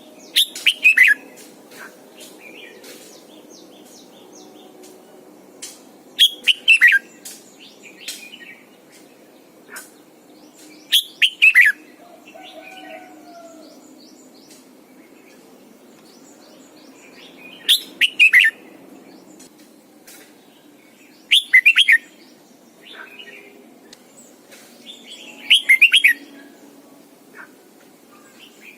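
Red-whiskered bulbul singing: six loud phrases a few seconds apart, each a quick run of falling whistled notes, with softer chirps between them.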